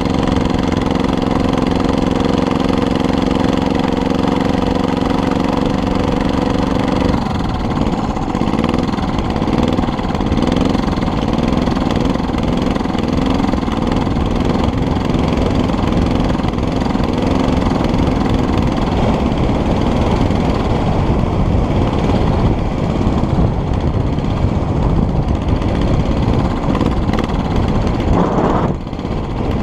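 Small engine of a homemade motorized bicycle running, which the builder says putts. It holds a steady note for about the first seven seconds, then its pitch wavers up and down as the bike is ridden.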